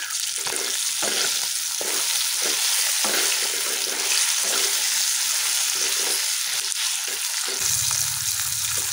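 Chicken pieces sizzling in hot oil in a nonstick wok, with a steady hiss throughout. A wooden spatula stirs and scrapes through them in irregular strokes.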